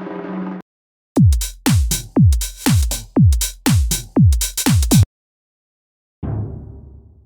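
Korg Triton Extreme VST drum sounds. A held, pitched drum tone cuts off within the first second. Then a drum-machine beat of about two deep kick drums a second, each dropping in pitch, with sharp hits over them, stops abruptly about five seconds in, and a low noisy hit fades away near the end.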